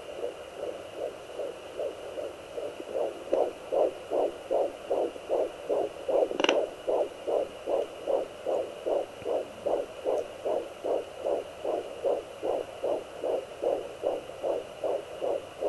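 Fetal heartbeat of a 13-week baby through a handheld fetal doppler's speaker: fast, even whooshing pulses of about two and a half beats a second over a steady high whine, growing louder about three seconds in. One brief scratchy swish about six seconds in.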